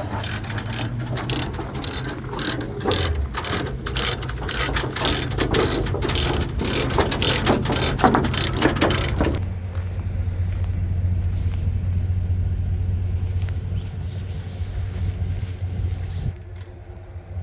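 Rapid, irregular metallic clicking and clanking for about nine seconds over a steady low engine idle; the clicking then stops and only the idling engine is left.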